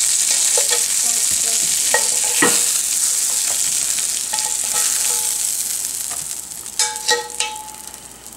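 Breakfast sausage links sizzling in hot grease in a cast-iron skillet, the sizzle slowly dying down. Metal tongs click against a glass bowl now and then as links are dropped in, several times near the end.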